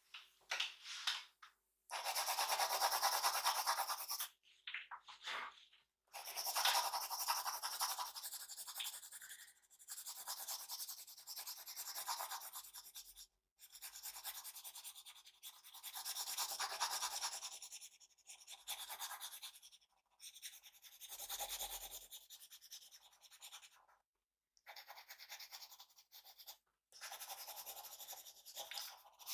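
A drawing tool scrubbing back and forth on paper, shading or colouring in with fast strokes, in about ten bursts of one to four seconds with short pauses between them.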